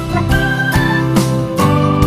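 Instrumental background music: held chords over a steady beat, with the chord changing about one and a half seconds in.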